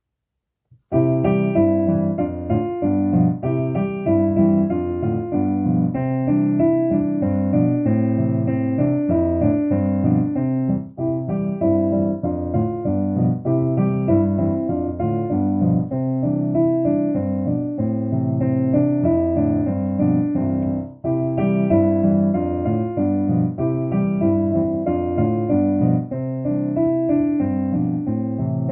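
Piano playing the accompaniment for a vocal warm-up exercise: short repeating phrases of notes that start about a second in, with brief breaks about 10 and 20 seconds in.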